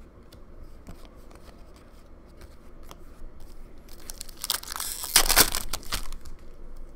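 Foil wrapper of a trading card pack being torn open and crinkled: a loud rip lasting about two seconds, starting a little past the middle. Before it come faint clicks of cards being flicked through by hand.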